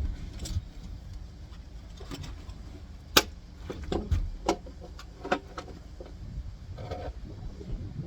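Scattered clicks and light knocks of parts and tools being handled while an LED streetlight lantern is put back together, with one sharp click about three seconds in.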